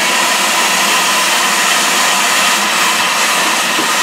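Steam locomotive hissing loudly and steadily as steam escapes at the buffer beam where the Ivatt Class 2MT 46447 is coupled to a steam-heated coach.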